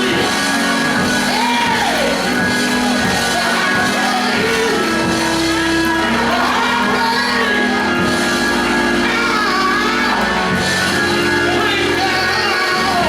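Live church worship music: sustained keyboard chords with voices singing over them.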